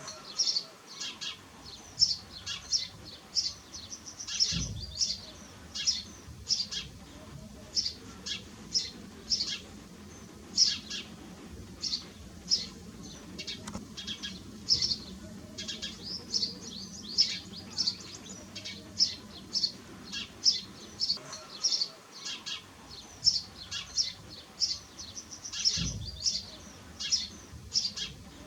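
A flock of house sparrows chirping: many short, high chirps overlapping in quick, irregular succession. Two brief low bumps come about four seconds in and near the end.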